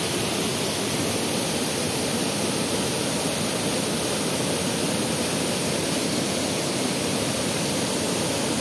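Steady rush of falling water from a river waterfall, an even, unbroken noise.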